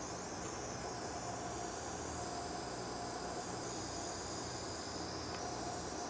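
Heat gun running, a steady blowing hiss, as it shrinks heat-shrink tubing over the wire joints.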